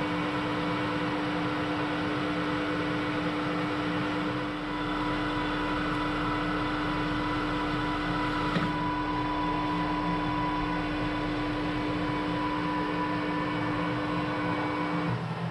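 Metal lathe running, taking a light final turning pass on a 4140 steel shaft: a steady machine whine with an even hum under it. The whine cuts out shortly before the end.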